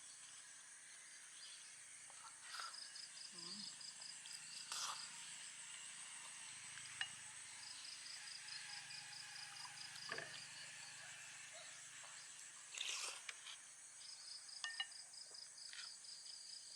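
Insects, cricket-like, chirping outdoors in repeated pulsed trills, three or four runs of a few seconds each over a steady high hiss. Faint scattered clicks and a brief rustle about three-quarters of the way through.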